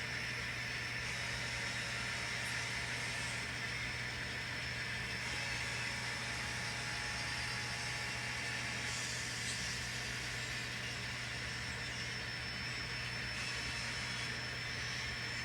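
Steady low hum with a faint whir from N scale model locomotives running on the layout.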